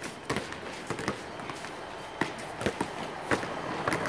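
Basketballs being dribbled on a concrete court, with irregular sharp bounces from more than one ball, mixed with running footsteps on the concrete.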